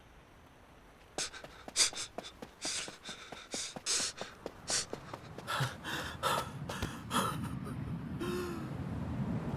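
A person gasping and panting in quick, sharp breaths, starting about a second in and coming faster, with a short muffled hum near the end.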